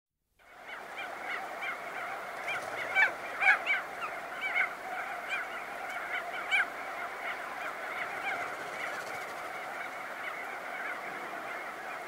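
A colony of crested auklets calling: a dense chorus of many short, rising-and-falling calls overlapping without pause. Louder, closer calls stand out about three to four and a half seconds in and again at six and a half seconds.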